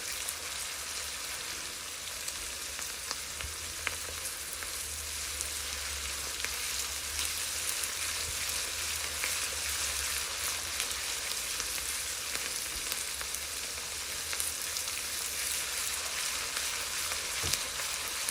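Chopped onions frying in hot clarified butter in a wok, a steady crackling sizzle with occasional small pops and clicks. The onions are being lightly fried until soft and pale pink.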